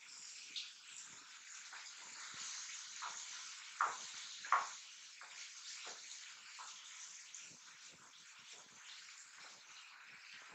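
Vegetables sizzling faintly in oil in a nonstick kadai as a wooden spatula stirs them, with light scrapes and taps of the spatula on the pan and two sharper knocks about four seconds in.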